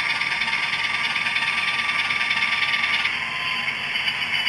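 Diesel engine sound from a model locomotive's MRC sound decoder, played through its small onboard speaker, thin and steady and mostly in the upper range, with some rattle while the model moves at its first speed step. The sound shifts slightly about three seconds in.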